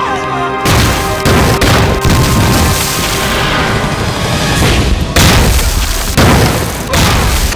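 A string of heavy explosions, shell bursts in a war-film battle: several in quick succession about a second in, then more around five, six and seven seconds in. Dramatic score music plays underneath.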